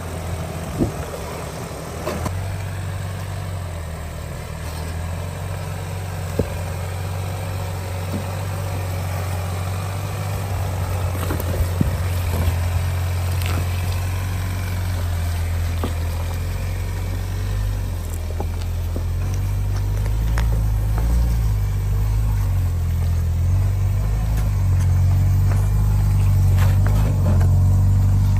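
2025 Ford Bronco Sport's engine running at low revs as the SUV crawls slowly over rocks, with scattered sharp knocks and crunches of tyres on stone. The engine grows louder through the second half.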